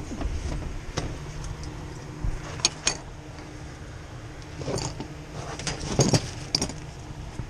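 Hand work noises: a few sharp clicks and knocks, two close together near the middle and a busier cluster about five to six and a half seconds in, over a steady low hum.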